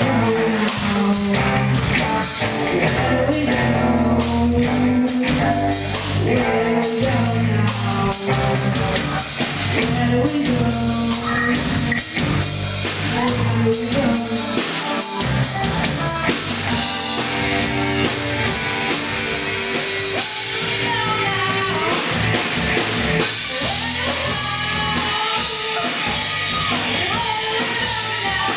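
Rock band playing live: electric guitars over a drum kit beat, with a girl singing.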